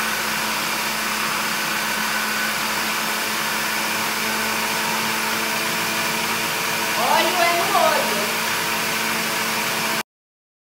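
Countertop blender motor running steadily at speed, a constant whir with a low hum, while oil is poured in to emulsify milk into mayonnaise. It cuts off abruptly near the end.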